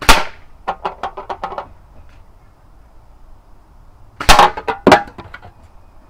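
Two air-rifle pellet hits on an aluminium drinks can, each a sharp crack followed by about a second of rattling clicks as the can rocks and clatters on a metal bench. The second hit, about four seconds in, knocks the can off the bench.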